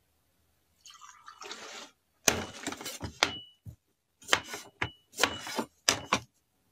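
Liquid poured from a plastic jug into a small drinking glass, then a cleaver chopping ginger root on a wooden table: a quick run of sharp chops, some leaving the blade briefly ringing.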